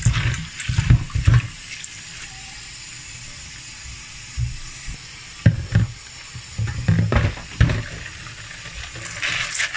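Tap water running into a steel colander of beans as they are rinsed and stirred by hand, with irregular knocks and clunks of the metal colander and bowl against the steel sink, the loudest at the start and about halfway through.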